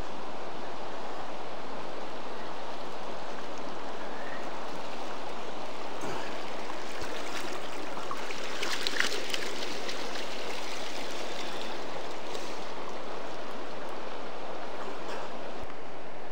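River water flowing steadily, a constant rushing noise. A few light knocks stand out over it, and a brief sharper burst of noise comes about nine seconds in.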